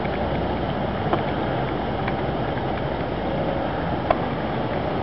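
Steady rushing background noise, with a faint click about a second in and a sharper click about four seconds in.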